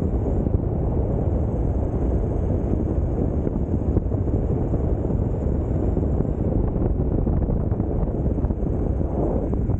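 Steady wind buffeting the microphone over the roll of an electric mountainboard's pneumatic tyres on asphalt at speed, a dense low rumble with a faint high whine above it.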